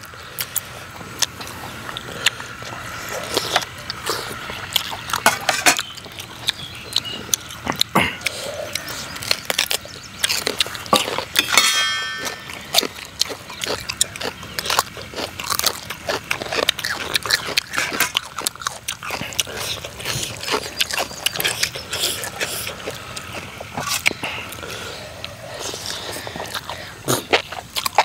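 Close-up eating sounds: chewing and slurping of a spicy noodle salad, metal spoons clicking and scraping on a steel tray, and crisp bites into raw vegetables. These come as many short, irregular clicks and smacks.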